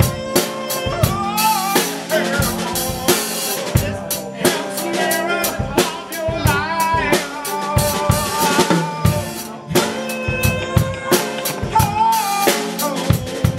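Live drum kit playing a steady beat with bass drum, snare and rimshots, under a small acoustic guitar and a man singing.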